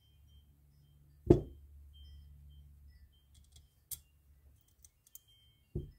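Small metal fishing-reel parts being handled and fitted by hand on a cloth-covered bench: one loud knock about a second in, a few light clicks, and a softer knock near the end.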